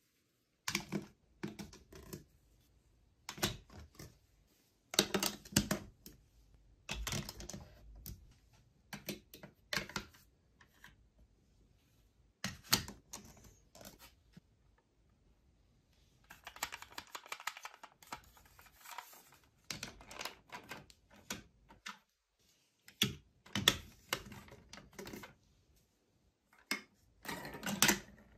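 Large plastic toy building blocks clicking and clacking as they are pressed together and set down, in irregular knocks with short pauses, and a longer stretch of busier clatter a little past halfway.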